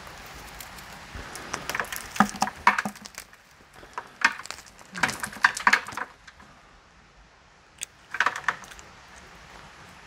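Old, dead orchid roots crackling and rustling as they are torn off the plant by hand, in three bursts of dry snapping: about two seconds in, around five seconds, and near the end.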